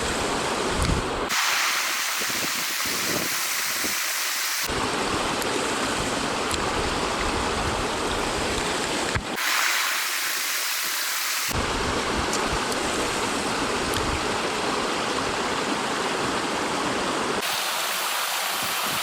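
Mountain stream rushing steadily, its tone switching abruptly several times between brighter and fuller stretches of water noise.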